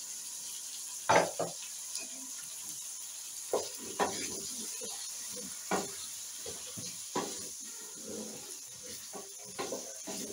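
Potato cubes, peas, capsicum and chicken sizzling in a pan while a spatula stirs and scrapes them, with irregular sharp knocks of the spatula against the pan, the loudest about a second in.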